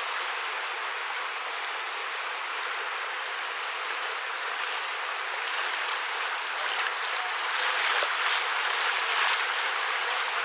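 Rushing flash-flood water: a steady churning wash of muddy water flowing fast past the wearer of a body camera, growing a little louder in the second half.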